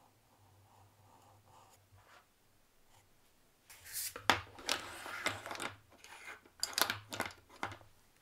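Plastic drawing pens being handled and set down, a run of clicks and clatters against each other and the desk that starts about halfway through and lasts about four seconds.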